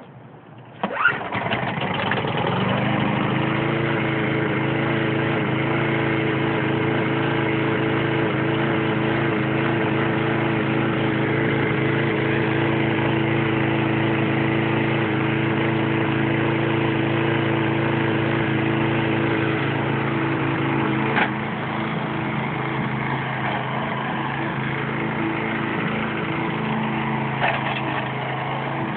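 The 6 hp Briggs & Stratton engine of a 20-inch push lawn mower starts about a second in and settles within a couple of seconds into steady running. A click comes about 21 seconds in, after which it runs a little quieter.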